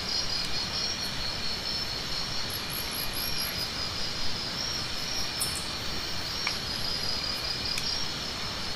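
Evening chorus of insects chirping steadily in a high, pulsing drone, over a constant low hiss of outdoor noise, with a few brief higher chirps.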